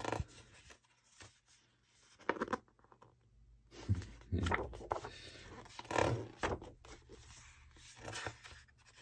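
Big glossy pages of a large hardback book being handled and turned over: a series of short papery rustles and swishes.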